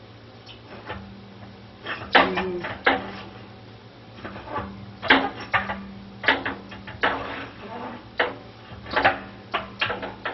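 A new flexible anode rod being fed down into a water heater tank: a dozen or so irregular metallic clicks and knocks as it goes in, over a steady low hum.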